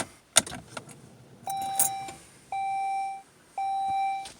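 Saab 9-3 dashboard chime beeping three times, steady electronic tones about a second apart, after a short click.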